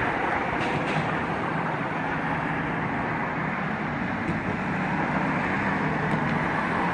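Steady outdoor engine and traffic noise: an even rumble with a faint low hum and no distinct events.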